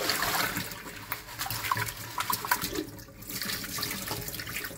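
Kitchen tap running into a plastic jug of aquarium gravel in a stainless steel sink, the water splashing and overflowing as the gravel is swirled and rinsed, with scattered small clicks from the grains. The flow dips briefly about three seconds in.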